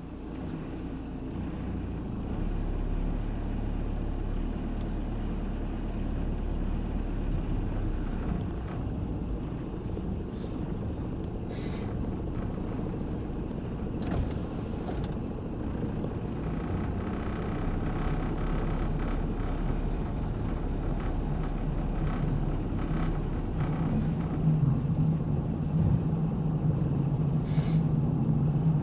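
Ford Transit van driving, engine and road noise heard from inside the cab: a steady low rumble with an engine hum that grows stronger over the last few seconds.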